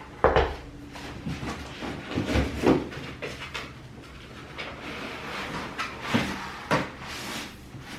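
Handling of standing-desk parts and packaging: a heavy dull knock about a quarter second in, then several lighter knocks and clunks with rustling in between.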